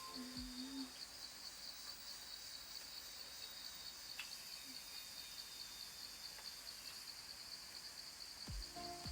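Cicadas calling in a steady, high-pitched chorus with a fast, even pulse, and a brief low tone just after the start.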